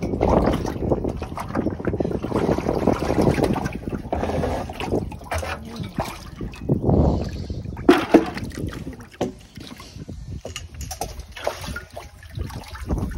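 Live fish splashing and thrashing in water in a plastic barrel as a landing net scoops through it, with wind buffeting the microphone. A few sharp splashes or knocks come about eight seconds in.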